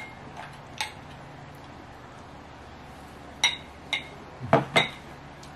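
A metal spoon clinking against a white ceramic bowl while eating: two clinks near the start, then a quicker run of four a little past the middle. A steady low hum runs underneath.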